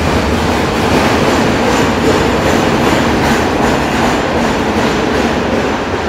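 Montréal Métro MR-63 vacuum maintenance train rolling past close by along an underground station platform: a loud, steady running noise from the passing cars, easing slightly near the end as the train pulls away.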